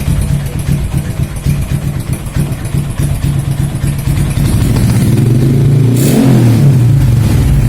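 Bored-up Honda Supra X 125 single-cylinder four-stroke engine running steadily, then revved about five seconds in, its pitch climbing and dropping back near the end.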